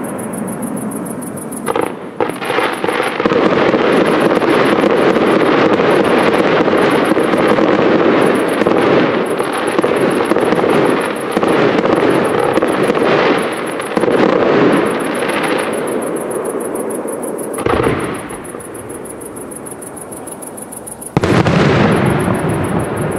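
Professional fireworks display: aerial shells bursting in a dense, continuous run of booms and crackling. A sharp loud onset comes about two seconds in, the barrage eases off for a few seconds near the end, then another loud burst begins.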